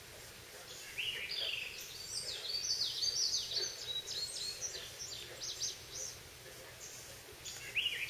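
Songbirds singing: a run of rapid, high, sweeping notes starts about a second in and lasts several seconds, then starts again near the end, over a steady woodland background.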